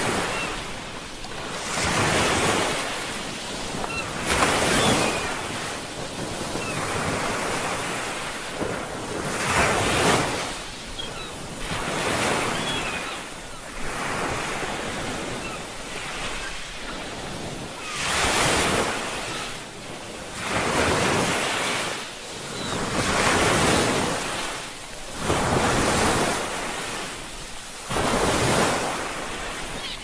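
Ocean surf, waves breaking and washing in one after another. Each is a rush that swells and fades every two to three seconds, with a softer stretch around the middle.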